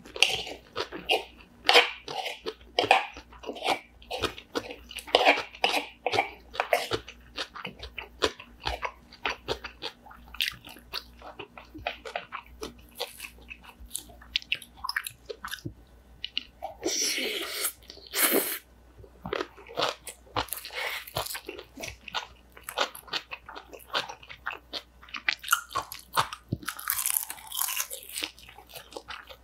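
Close-miked chewing of crunchy cucumber bibimbap: rapid, crisp crunches of seasoned raw cucumber and pickled cucumber (oiji) being bitten and chewed. Two longer hissy bursts come about halfway through and near the end.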